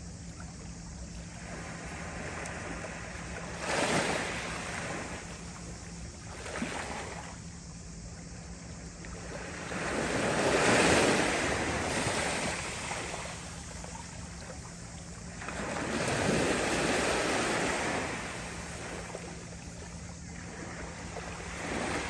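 Small waves of a calm Mediterranean sea lapping and washing up over a pebble-and-sand shore. They swell and fall back every few seconds, and the biggest wash comes about ten seconds in and lasts a few seconds.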